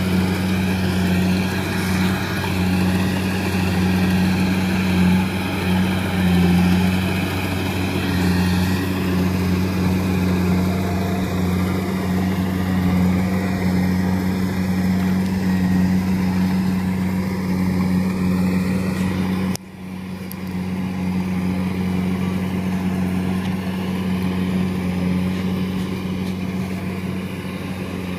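Kubota DC70 combine harvester's diesel engine running steadily as it works through the rice paddy, a constant low hum. The level drops suddenly and briefly about two-thirds of the way through, then the hum carries on.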